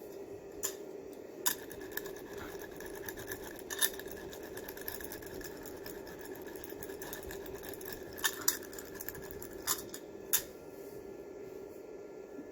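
A steady low hum with scattered sharp clicks and snips over it, about seven of them standing out loudly.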